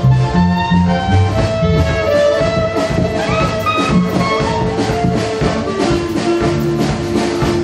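Live band music: a clarinet playing the melody with small bends in pitch over accordion, guitar and a drum kit keeping a steady beat.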